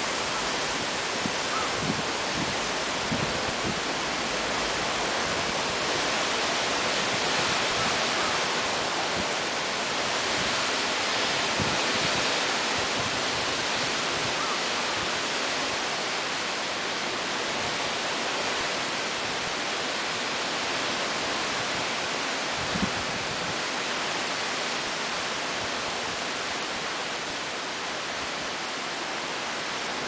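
Heavy typhoon rain and wind: a steady, even rushing hiss of downpour, with one brief knock about two-thirds of the way through.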